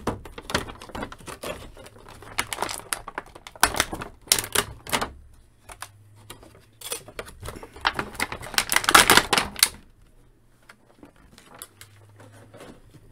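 Thin clear plastic blister tray crackling and clicking as an action figure is pried out of it by hand, in quick irregular clicks that die down about ten seconds in.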